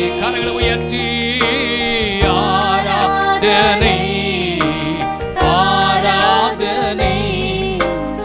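Tamil Christian worship song: a voice singing with wavering pitch over steady instrumental accompaniment.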